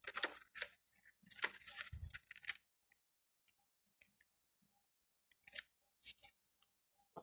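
A sheet of origami paper being folded and creased by hand: crackling, rustling paper noise for the first couple of seconds, then a few faint clicks and short rustles.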